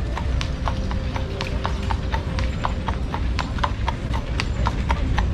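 Horse's shod hooves clip-clopping at a walk: a quick, uneven run of sharp clops, several a second.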